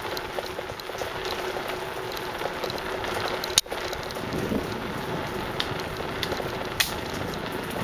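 Bicycle riding along a forest trail: a steady crackling rattle of tyres on the path and the bike's loose parts, with a sharp click about three and a half seconds in.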